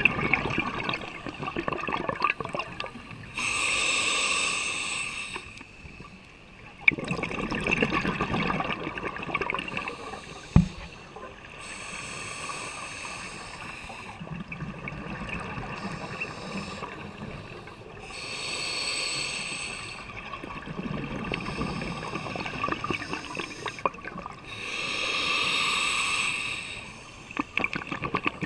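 Scuba diver breathing through a regulator underwater: four slow breaths, each a hissing inhale through the demand valve followed by a longer bubbling exhale. Two sharp knocks stand out, about seven and ten seconds in.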